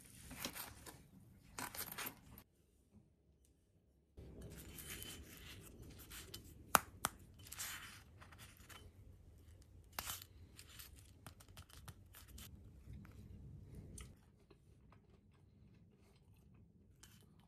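A toasted sandwich with a fried-chicken filling being pulled apart by hand: the crisp crust gives faint crackling and tearing, with two sharper cracks about seven and ten seconds in.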